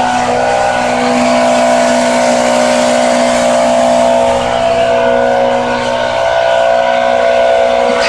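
The engine of a tree crew's grapple truck, running steadily at high revs with a steady whine to drive the grabber.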